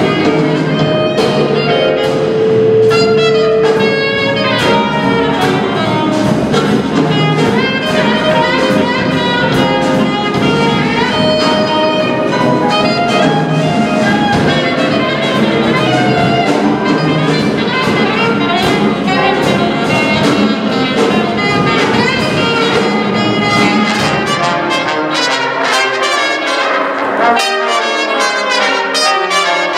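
Small jazz band playing live: alto saxophone, trumpet and trombone over piano, upright bass and drums. About four-fifths of the way through, the bass and low end drop away and the horns carry on together.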